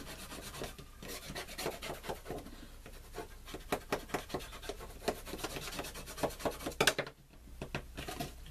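Paper gift box being folded and pressed shut by hand: the card rustles and rubs, with a run of small irregular taps and scrapes, the loudest about seven seconds in.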